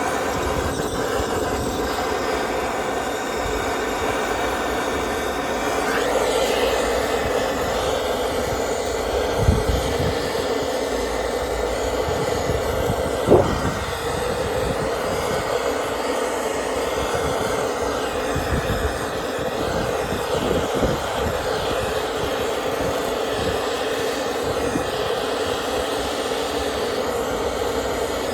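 A machine runs steadily throughout, with a couple of sharp knocks of metal on metal about a third and half way through.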